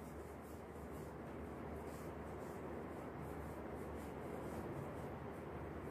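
Faint, steady rubbing of a whiteboard eraser wiping marker writing off a whiteboard.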